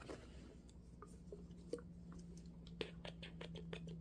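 Faint small clicks and taps of plastic body-mist spray bottles and a cap being handled, coming more often in the last second or so, over a faint steady hum.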